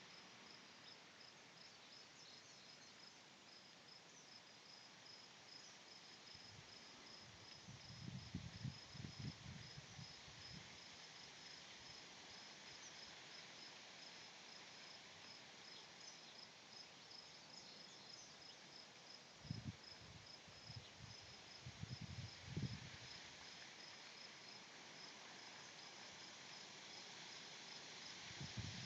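Wind blowing through trees: a faint, steady rustling hiss, with low gusts buffeting the microphone about eight seconds in and again around twenty seconds. A faint high chirping repeats at an even rate over it.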